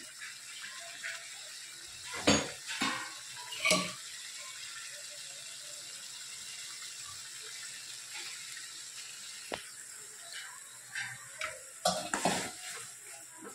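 Steel masher knocking and scraping against a steel kadai as pav bhaji is mashed, in clusters of metal clinks about two seconds in and again near the end. Between them runs a steady sizzling hiss of the bhaji cooking in the pan.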